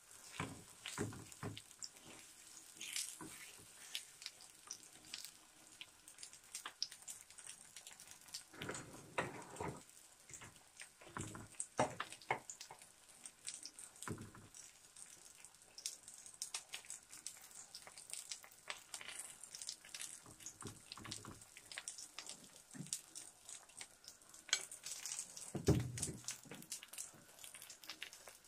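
Gram-flour (besan) batter sizzling faintly in a little ghee on a hot frying pan while it is spooned in and spread, with many clicks and scrapes of a metal spoon on the bowl and pan and a few louder knocks.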